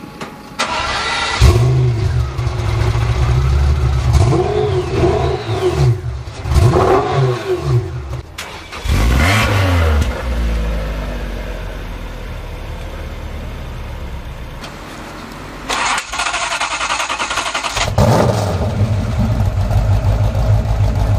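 Supercar engines started and revved one after another, with cuts between clips. A Pagani Zonda's engine fires about a second and a half in and is blipped several times. A Lotus runs more steadily. A Ford GT40 starts near the end.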